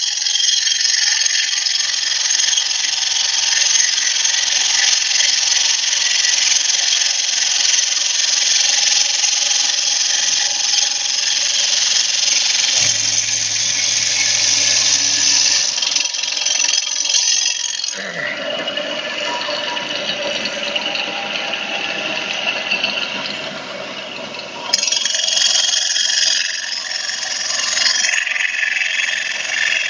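Stone CNC router's saw blade cutting into a white stone slab: a loud, steady, high grinding hiss. About 18 s in the sound drops and turns lower and coarser, and about 25 s in the high grinding comes back suddenly.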